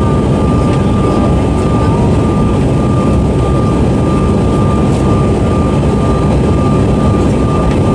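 Steady in-cabin noise of a Bombardier CRJ-900 regional jet in flight: its rear-mounted General Electric CF34 turbofans and rushing air make a dense low rumble, with a steady high whine running over it.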